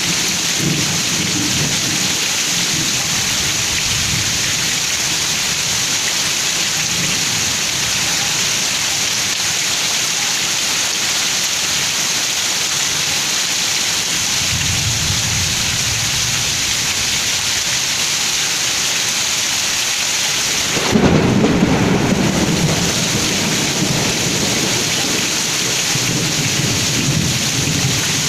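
Heavy rain pouring steadily, with rolls of thunder rumbling low now and then. About three quarters of the way through, a louder thunderclap breaks and rumbles for a couple of seconds.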